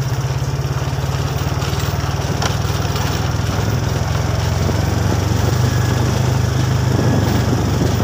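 Motorcycle engine running steadily at a low, even pitch, slowly getting a little louder.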